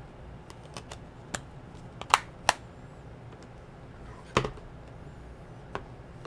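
Scattered sharp plastic clicks and taps from disc cases being handled, with three louder snaps about two, two and a half and four and a half seconds in.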